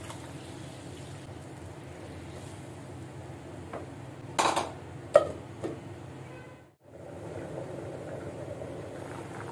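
Water pouring into a pan of simmering lentils and vegetables, then a wooden spatula stirring and knocking against the pan a few times just past the middle. After a short break, the lid-covered pot bubbling on the boil.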